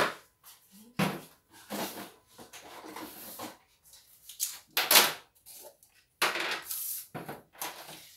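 Rummaging in a kitchen cupboard: a series of sharp knocks and rattling clatter as containers are moved around and a cupboard door is opened and shut, with the loudest knocks right at the start and about five seconds in.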